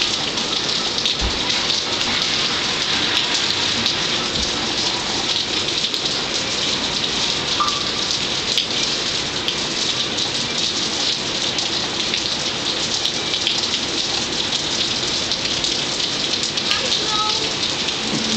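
Steady rain pouring down during a rainstorm: an even hiss of rain on the ground and surfaces that does not let up.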